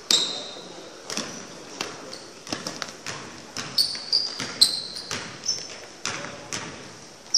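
A basketball bouncing on a hardwood gym floor, with sharp, irregularly spaced bounces during play. Short high sneaker squeaks come near the start and several more from about four to five and a half seconds in.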